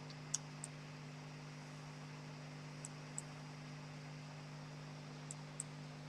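Faint steady electrical hum and hiss, with three pairs of soft computer-mouse clicks, each pair about two and a half seconds apart.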